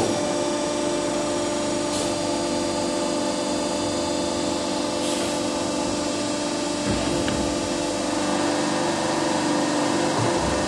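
Hydraulic test bench power unit running with a steady whine as it pushes a double-acting telescopic hydraulic cylinder out under pressure; it comes on suddenly at the start. Two brief low thumps come later, one about two-thirds through and one near the end.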